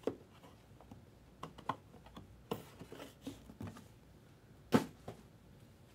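Cardboard box lid and a foam-padded card case being handled: scattered light clicks and rustles, with one sharper knock almost five seconds in.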